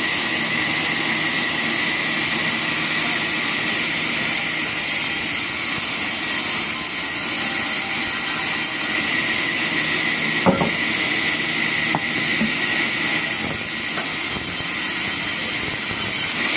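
Steady high-pitched hiss with a few faint clicks about ten, twelve and fourteen seconds in.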